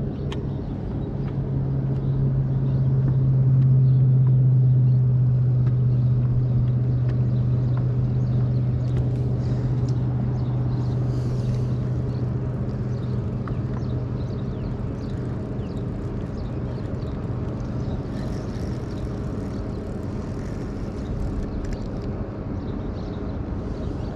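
A steady low motor hum that swells to its loudest a few seconds in and then slowly fades away.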